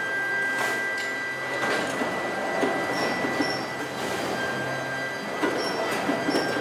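Workshop machinery running with a steady high whine, over irregular metallic clatter and scattered knocks.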